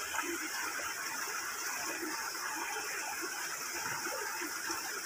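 Shallow stream running steadily over rocks.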